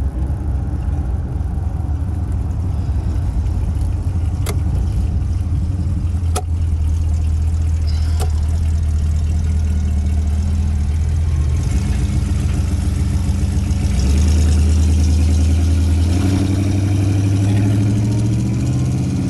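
1964 Dodge 330's 383 V8 heard from inside the cabin while driving, a deep steady exhaust rumble. A few sharp clicks sound in the first half, and the engine note rises in steps near the end as the car speeds up.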